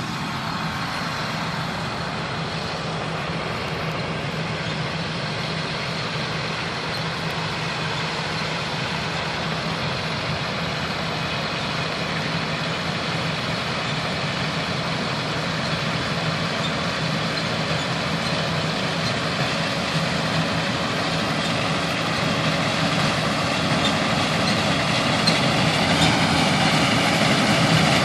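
Heavy farm machinery engine running steadily, growing gradually louder.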